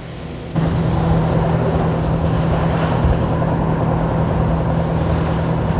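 An engine running steadily, a low even hum under a loud rushing noise, cutting in abruptly about half a second in.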